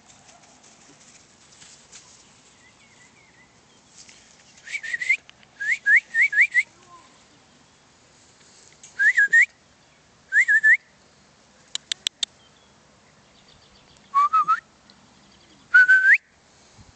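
A person whistling to call a puppy back: short rising whistles in quick groups of two to four, repeated several times. A few sharp clicks come about twelve seconds in.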